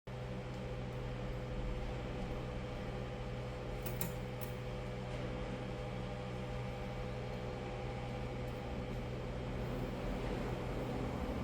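Hot-air blower running steadily, a motor hum under a rush of air, heating the back of a laptop's screen cover to soften the tape holding the screen in. Two faint clicks about four seconds in.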